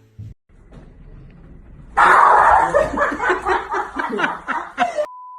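An air horn blasts suddenly and very loudly about two seconds in, followed by laughter. Near the end comes a short censor bleep, one steady beep.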